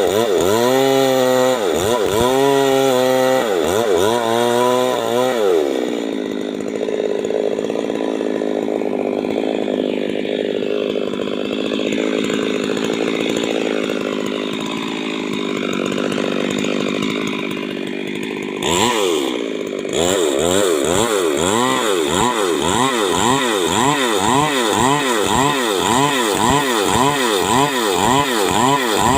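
Stihl MS 382 two-stroke chainsaw revving up and down in repeated throttle blips, then held at a steady high speed for about twelve seconds. It gives one more short burst, then goes back to quick revving up and down, about once or twice a second.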